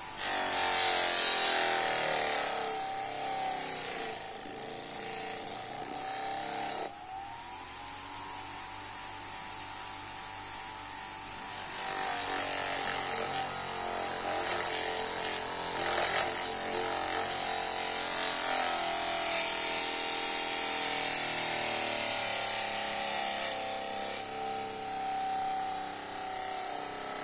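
Bench grinder running with a steady motor whine while a steel chipping-hammer blade is held against the spinning wheel, its edge being ground with a rasping hiss. The grinding is heaviest in the first couple of seconds and again through the second half. The motor's pitch climbs back up when the load eases, about seven seconds in.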